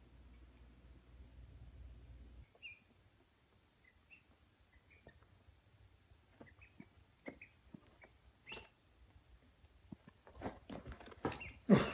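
Ducklings peeping: scattered short, high, soft peeps. Near the end come rustling and knocks, with one louder bump just before the end.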